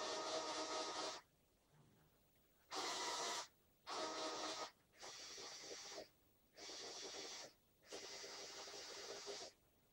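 Small electric motors and plastic gears of a motorized LEGO Technic excavator whining in six short runs of about a second each, with brief pauses between, as the boom and bucket are moved.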